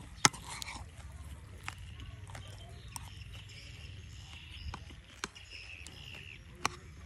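Eating sounds: chopsticks clicking against a bowl six or so times at uneven intervals, the sharpest click just after the start.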